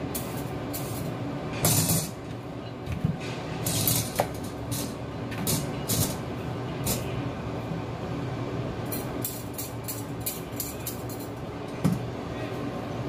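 Short scraping strokes of a vegetable peeler on a carrot and the knocks of kitchen handling, with a quick run of strokes about two-thirds of the way through, over a steady low hum.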